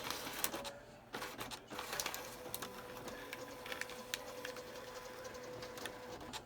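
Smith Corona typewriter at work: a run of irregular mechanical clicks and taps, with a faint steady whine from about two seconds in until just before the end.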